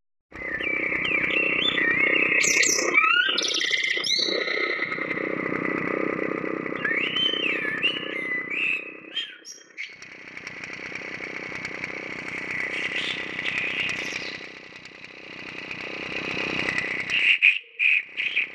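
Blackbird song morphed with a running engine by Zynaptiq Morph 3 Pro's Sonance algorithm: warbling, bird-like chirps over a steady engine-like drone. The chirps are strongest in the first half, fade into a steadier tone after a brief dip about halfway through, and return near the end as the blend shifts.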